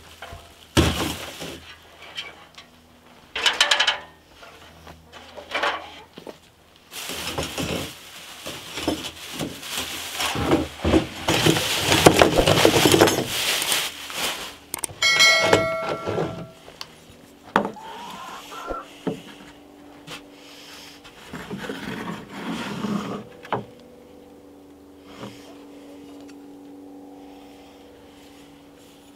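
Plastic bags of metal hardware crinkling and rustling as they are handled and opened, loudest for several seconds in the middle, among scattered knocks. A short bright chime sounds just after the crinkling, and a steady low hum comes in near the end.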